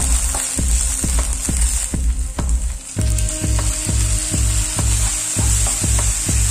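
Onions and green chillies sizzling in hot oil in a frying pan while being stirred with a spatula, with marinated chicken gizzards tipped in and stirred through; the sizzle dips briefly about two seconds in, then picks up again. Background music with a steady bass beat plays underneath.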